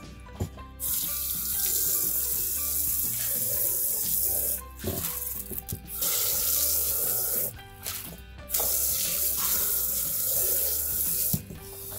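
Garden hose spray nozzle spraying water into a rock-tumbler barrel and over the stones in a sink strainer, in three long bursts with short pauses between, rinsing out the coarse silicon carbide grit slurry.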